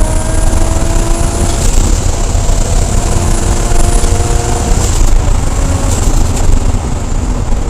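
Turbocharged car engine pulling hard under load, its pitch rising slowly through a gear and starting over, over a heavy low rumble. Short hissing, fluttering bursts come about two seconds in and again around five and six seconds, typical of turbo flutter as the throttle lifts between pulls.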